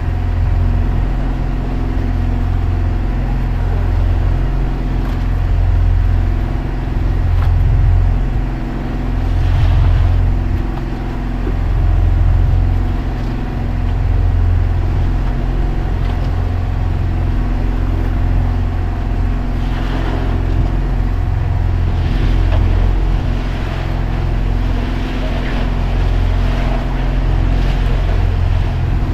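An engine on a fishing boat running steadily at a constant speed, a loud low drone with a slight rise and fall in loudness, with a few faint knocks from the catch being handled.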